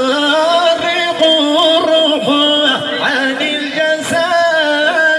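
Men singing a Sufi madih praise chant in a single melodic line, holding long notes with ornamented, wavering pitch.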